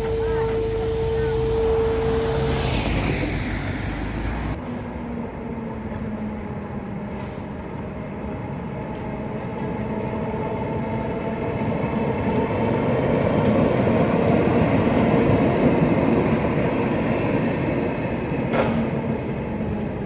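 Historic tram wheels squealing on the rails in one steady high tone for the first few seconds. After a sudden change about four seconds in, tram running noise with faint squeal tones swells and fades, with a short crack near the end.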